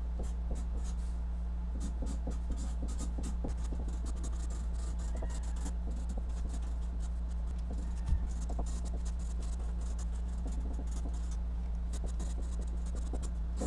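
Marker writing on a sheet of paper taped to a wall: a continuous run of short scratchy strokes. A steady low hum runs underneath, and there is a single knock about eight seconds in.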